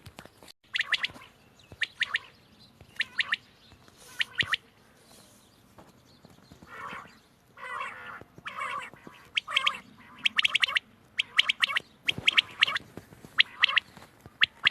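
Quail calling repeatedly in short, bright calls, about one a second, coming closer together in the second half.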